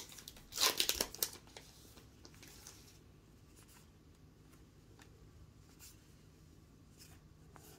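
Baseball trading cards being flipped through by hand. There is a quick flurry of card-stock flicks and rustles in the first second or so, then only a few faint clicks as the cards are slid one behind another.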